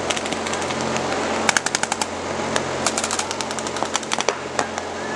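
Paintball markers firing in quick strings of sharp pops, several shots a second, over a steady low hum.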